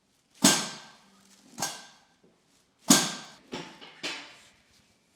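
Five sharp knocks or thumps, each dying away over about half a second. The loudest comes about half a second in and another about three seconds in.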